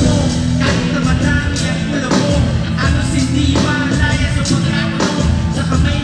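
Live hip-hop performance through a concert PA: a rapper's vocals into a microphone over a loud backing beat with heavy bass.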